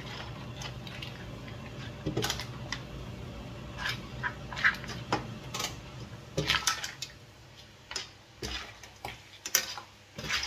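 Metal serving utensils scraping and clinking against a stainless steel pan as spaghetti with mussels is tossed and mixed: irregular clinks and scrapes, several seconds apart at first and closer together near the end.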